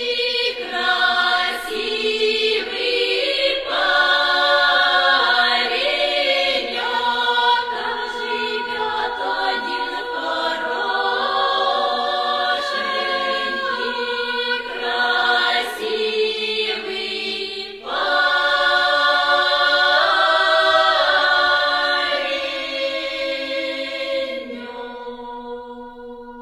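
Music: voices singing together in harmony, ending on a held chord that fades out over the last few seconds.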